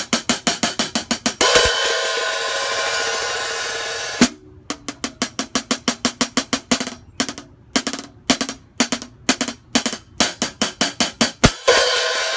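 Pair of 14-inch Samson Percussion hand-hammered bronze hi-hat cymbals, one with an inch-long crack, played in a sound test. It starts with a quick run of closed chick strokes, about six a second. Then comes an open ringing wash for a couple of seconds, then more separate closed strokes, and it opens up again near the end.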